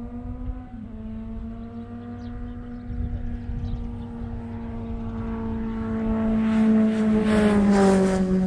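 A motor engine droning steadily, growing louder toward the end with a rushing noise and its pitch sliding down as it passes.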